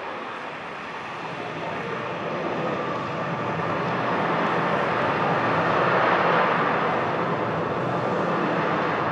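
Soundtrack of an immersive projection installation: a whooshing drone like rushing air that swells over the first several seconds, peaks about six seconds in, and then holds.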